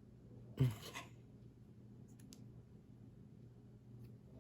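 A short knock from handling small parts and tools on a work surface during a phone teardown, a little over half a second in, then a few faint clicks and scrapes over a low steady hum.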